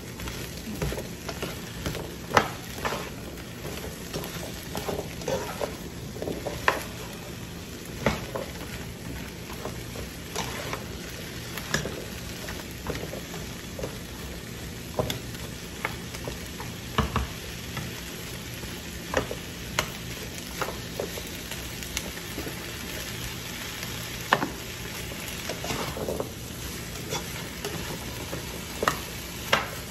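Chopped vegetables sizzling in a sauté pan as a spatula stirs and turns them, with a steady frying hiss and irregular clacks and scrapes of the spatula against the pan every second or two.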